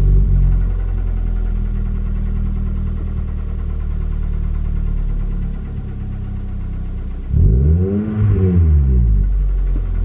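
2010 Kia Forte's 2.0-litre four-cylinder engine running steadily, then revved once about seven seconds in, its pitch rising and falling back within about two seconds. This is the engine noise that the owner is worried about.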